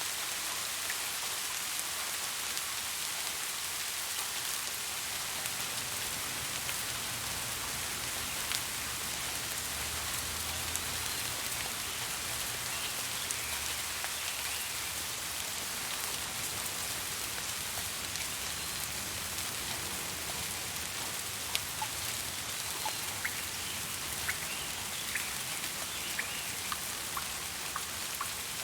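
Steady rain falling, an even hiss with individual raindrops ticking on a surface; the separate drips get more distinct near the end.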